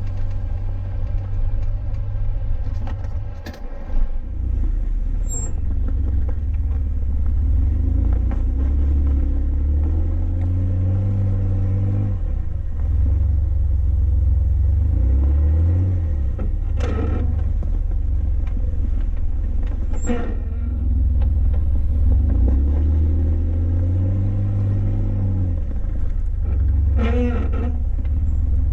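Jeep Wrangler driving: a steady low engine and drivetrain rumble whose pitch rises and falls several times as it speeds up and eases off. There are a few brief knocks along the way.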